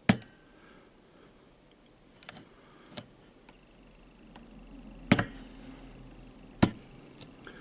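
A handful of sharp clicks and knocks from working the insert-pressing rig, a soldering iron in a drill-press mount. The loudest fall right at the start, about five seconds in and about six and a half seconds in, with smaller taps between.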